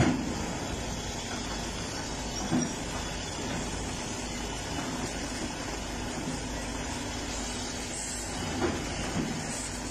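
Heavy diesel machinery, an excavator and a truck, running steadily as the excavator loads a large stone block onto the truck's bed, with a few short knocks about two and a half seconds in and again near the end.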